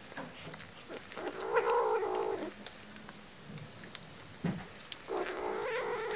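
A hungry kitten cries twice while eating, each drawn-out call lasting about a second: one about a second in and another near the end, with faint small clicks between.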